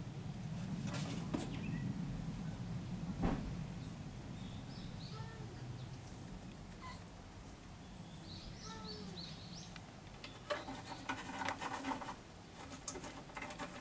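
Scattered small-bird chirps over a low outdoor rumble, then from about ten seconds in a cat's rapid, rhythmic open-mouthed panting. The cat is drooling heavily, which the owner suspects comes from eating rat poison.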